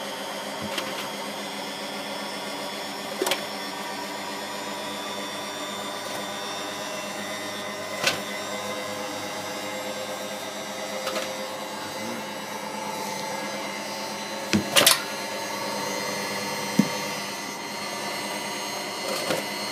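Candy GODF800 washing machine on its spin cycle, drum spinning at speed: a steady motor and drum hum with several held tones. A few sharp knocks break through about 3, 8 and 15 seconds in.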